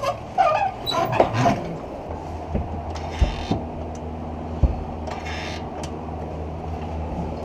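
Scattered metal clanks and knocks of hands-on work on a car's suspension parts, a few short squeaks at the start, over a steady low hum that sets in about two seconds in.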